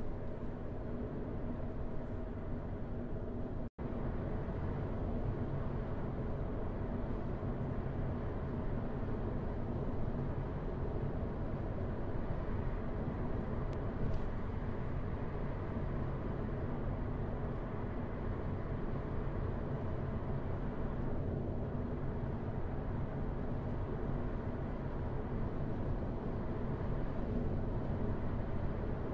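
Steady road and engine noise of a car driving at moderate speed, heard from inside the cabin: a low, even rumble of tyres on asphalt. The sound cuts out for a split second about four seconds in.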